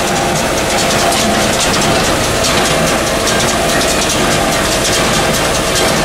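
A John Deere 6300 tractor's diesel engine runs steadily while it drives a John Deere 328 small square baler that is taking in and baling hay. Over the engine, the baler's pickup and plunger mechanism keep up a steady, fast clatter.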